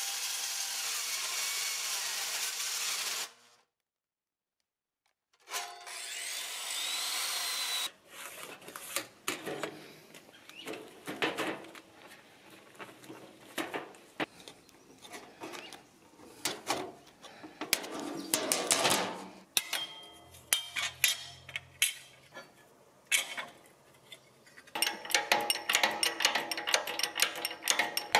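Handheld circular saw with a fine-tooth wood blade cutting aluminum plate: a steady, harsh run for about three seconds, then after a short break two more seconds of cutting. After that, tin snips chewing through aluminum sheet, a long series of irregular clicks and crunches that gets busier near the end.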